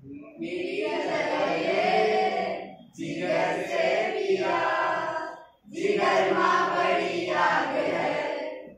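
A group of voices singing together in three long phrases, each a few seconds long, with short breaks between them.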